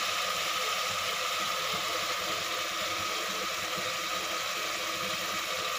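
Vegetable masala frying in an aluminium pressure cooker, a steady sizzle with a faint even hum beneath it.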